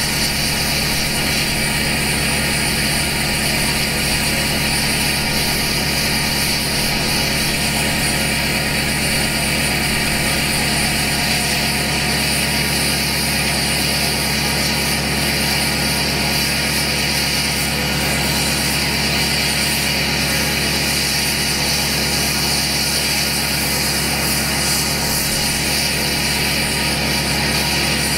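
2012 GMC Sierra's LML Duramax 6.6-litre V8 turbo-diesel idling steadily through a 5-inch straight pipe into an 8-inch axle dump, with no muffler, as it warms up after a cold start. The idle drones evenly and never revs.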